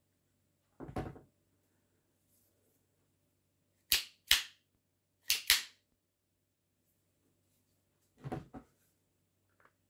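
Sharp plastic-and-metal clicks and knocks from handling the removed slide of an Action Army AAP-01 airsoft gas pistol. A dull knock comes about a second in, then two pairs of loud, sharp clicks a little over a second apart, and a pair of softer knocks near the end.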